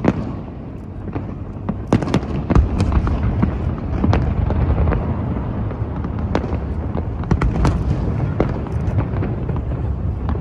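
Fireworks display: many sharp bangs and crackles, some overlapping, over a continuous low rumble of distant bursts.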